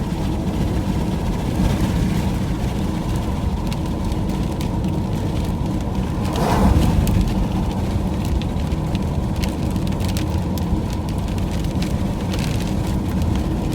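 Steady road and engine noise from inside a moving vehicle, with scattered light ticks and crackles over it and a brief swell about six and a half seconds in.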